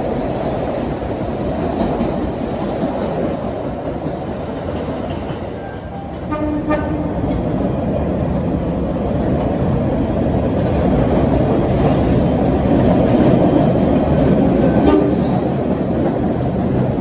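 MBTA train passing with a steady low rumble of wheels on rail, and a brief horn toot about six seconds in.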